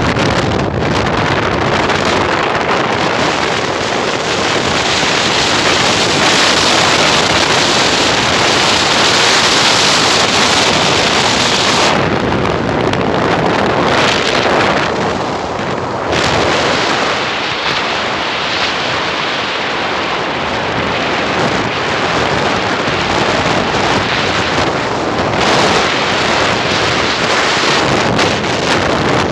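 Wind rushing and buffeting over the microphone while riding on a moving motorcycle taxi, a loud steady roar that eases off a little around halfway.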